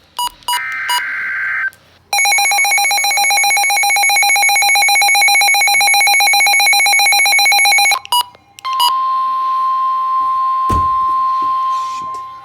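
Emergency Alert System broadcast tones: a short burst of the SAME digital header data squawk, then a harsh, buzzy two-tone EAS attention signal for about six seconds. After a brief break comes the steady, single-pitched NOAA Weather Radio warning alarm tone, with a low thump under it near the end.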